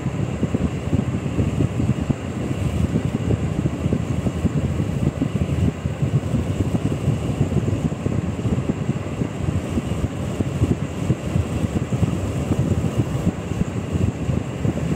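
Car driving along a road, heard from inside the car: a steady low rumble of road and wind noise, with wind buffeting the microphone.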